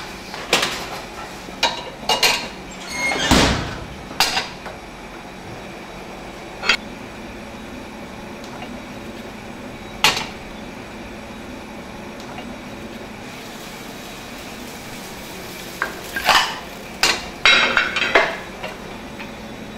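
Small metal frying pans knocking and clattering on the iron grates of a commercial gas range, with a plate handled among them. There are several sharp knocks in the first few seconds, the heaviest about three seconds in, single clinks near seven and ten seconds, and a burst of clatter near the end, all over a steady background hiss.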